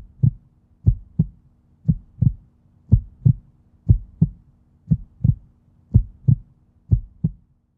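Heartbeat sound effect: a steady double thump, lub-dub, about once a second, over a faint low hum.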